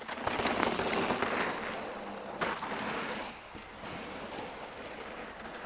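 Mountain bike tyres rolling and scrubbing over a dirt trail, with grit crunching and small ticks. It is loudest in the first two seconds as the bike passes close, has one sharp knock about two and a half seconds in, then goes on lower and steady.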